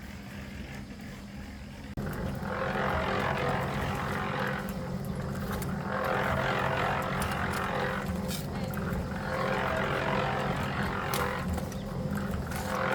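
A motor-driven machine running with a steady low hum. About two seconds in it gets louder, and from then on a swishing, rattling noise swells and fades about every three seconds, with scattered clicks.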